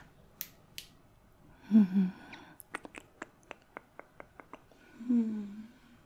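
Two short hummed vocal sounds from a close-up voice, the second rising a little in pitch. Between them comes a quick run of soft clicks, about four a second.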